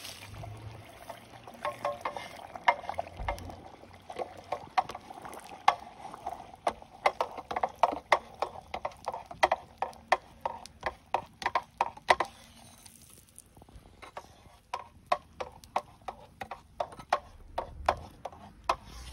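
Red-hot leaf-spring steel sword blade being oil-quenched upright in a pipe, crackling and popping in quick irregular clicks that thin out after about twelve seconds.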